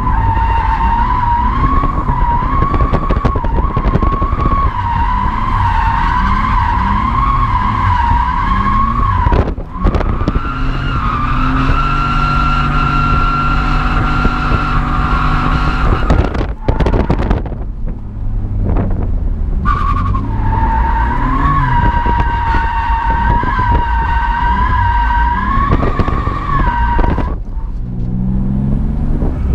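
Car tyres squealing in three long, wavering screeches as the car slides through corners, with short breaks about ten and seventeen seconds in, over the engine running hard, heard from inside the cabin. Near the end the squeal stops and the engine revs climb.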